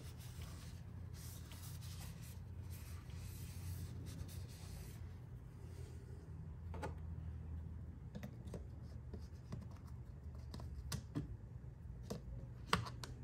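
A cloth rag rubbing and wiping around a plastic brake fluid reservoir for the first five seconds or so, then a few small clicks and one sharper click near the end as the reservoir cap is handled. A low steady hum runs underneath.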